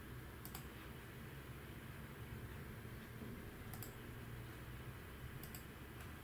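Three computer mouse-button clicks, each a quick double tick of press and release, spaced a couple of seconds apart, over a faint steady low hum.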